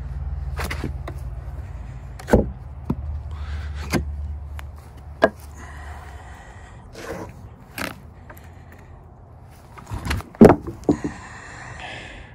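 A series of sharp knocks and thumps, the loudest about ten seconds in, as heavy freshly milled oak slabs are handled, with rustling between them. A low steady rumble underlies the first few seconds.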